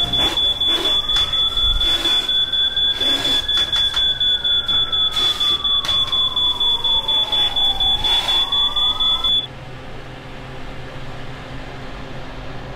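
Smoke alarm beeping rapidly on one high pitch, set off by smoke from a pot on the stove. A lower tone slides up and then back down beneath it, and the alarm cuts off suddenly about nine seconds in.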